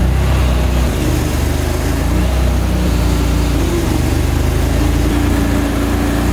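Engine of a small amphibious off-road vehicle running steadily under way through shallow pond water, with water churning around the hull.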